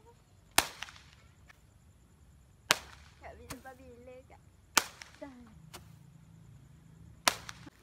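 Hand-held Roman candle firing, with four sharp pops about two seconds apart as each ball is launched.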